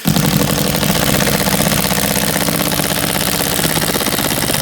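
Power drill driving a screw at an angle through new drywall into its support: a steady run that starts abruptly, with a fast, even rattle.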